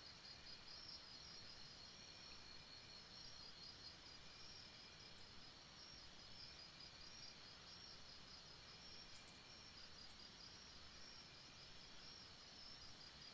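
Jungle ambience, faint: insects trill steadily in a high, pulsing chorus, with a few brief higher chirps about nine seconds in.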